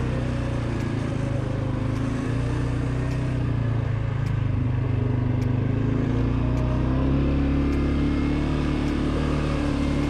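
ATV engine, a CF Moto 520L's single-cylinder, running steadily under way, a little louder in the middle.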